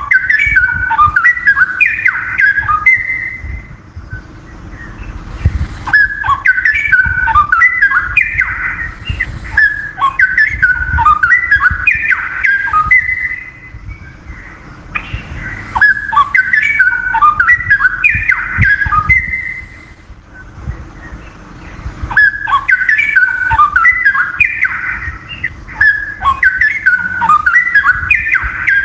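Straw-headed bulbul (cucak rowo) singing loud, rich, bubbling whistled phrases, each about three seconds long, repeated about six times with short pauses between them.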